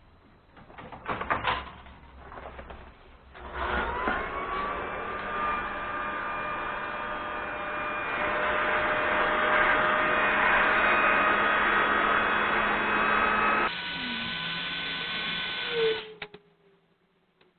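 A few handling clatters, then a small electric motor spins up with a rising whine and runs steadily for about ten seconds. Its pitch shifts near the end, and it winds down with a falling whine.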